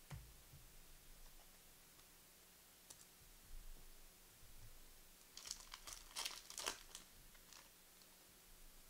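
Trading-card pack wrapper crinkling and tearing open in a cluster of brief rustles about five to seven seconds in. Otherwise near silence.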